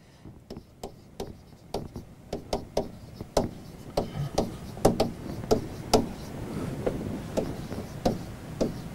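Pen tapping and clicking against the surface of an interactive whiteboard as words are written on it: irregular sharp taps, about two or three a second, getting louder after a few seconds.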